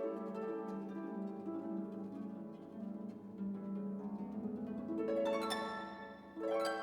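Background instrumental music of plucked, harp-like string notes, with a brief dip in loudness near the end.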